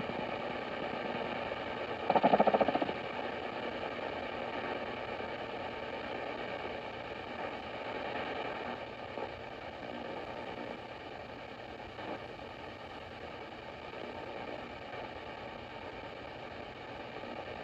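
Static hissing from a Sony ICF-2010 shortwave receiver in AM mode as it is tuned up through empty frequencies around 5.1 to 5.7 MHz. A brief, louder buzzing signal comes through about two seconds in.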